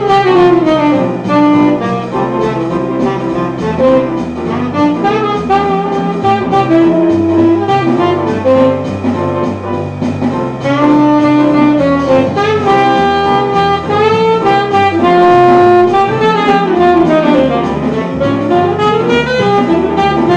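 Tenor saxophone played through a repaired Otto Link hard-rubber mouthpiece, the mouthpiece being play-tested: a melody of quick runs and long held notes over low bass notes.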